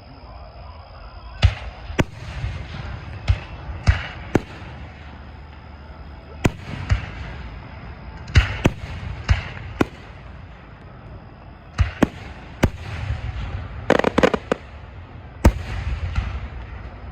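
Fireworks display: a long run of sharp bangs, irregularly spaced and sometimes two or three close together, each followed by a low rolling rumble, with a quick cluster of crackling shots near the end.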